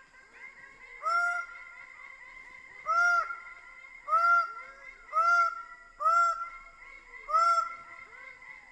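Greater bird-of-paradise giving loud, harsh calls: six short arched notes, about one a second. A faint steady high tone runs behind them.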